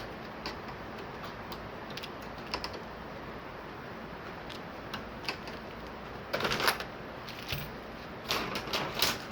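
Scattered plastic clicks and snaps, with two short flurries of rapid clicking, one a little past halfway and one near the end: the plastic clips on a TV's panel frame being pried free with a flat tool.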